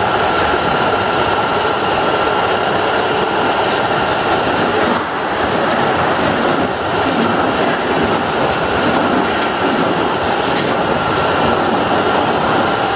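Automatic motor-oil bottle filling and capping line running, its conveyor carrying plastic bottles along: a steady mechanical rattle with a constant whining tone and scattered clicks.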